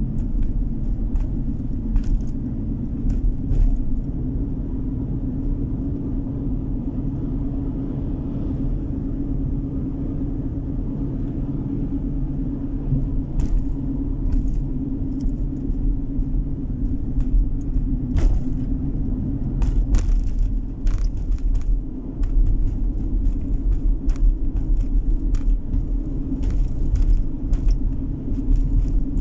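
Steady low rumble of a car's engine and tyres on the road, heard from inside the cabin while driving. Scattered small clicks and rattles come through it, more often in the second half.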